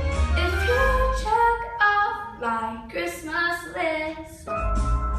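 A young female voice singing a held, wavering melodic passage without clear words, over a backing track whose bass drops out in the middle and returns near the end.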